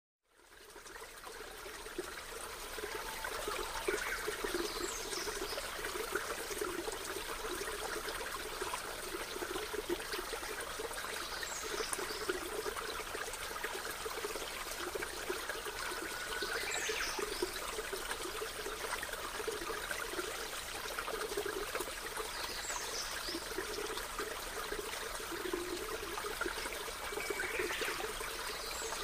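Water trickling steadily, fading in at the start, with a faint high sound recurring about every five or six seconds.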